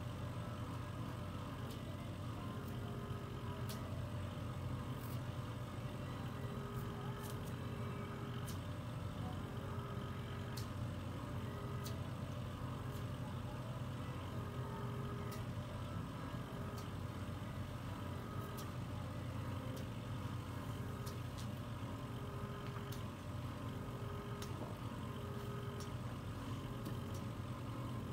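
A microdermabrasion machine's suction pump running with a steady hum while its wand is worked over the skin. A higher tone comes and goes every second or so.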